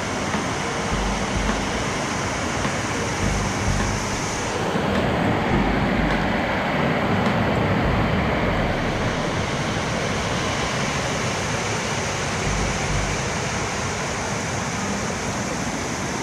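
Steady rush of a woodland brook running over rocks, a little fuller for a few seconds near the middle, with low rumbles on the microphone.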